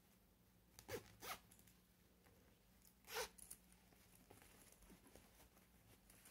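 Zipper on a small fabric coin purse pulled in three short strokes: two quick ones close together about a second in, one more about three seconds in.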